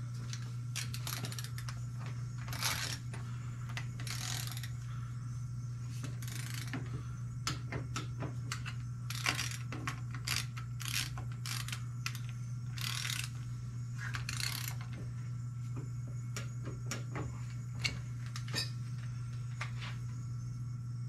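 Ratcheting torque wrench working 7/16 nuts down on a small two-stroke engine's side cover, to only about 5 foot-pounds: irregular ratchet clicks and short rattling back-strokes. A steady low hum runs underneath.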